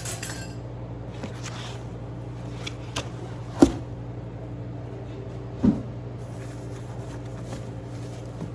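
A few knocks and clunks from the air fryer oven's accessories and box being handled while unpacking. The loudest is about three and a half seconds in and another comes just before six seconds, over a steady low hum.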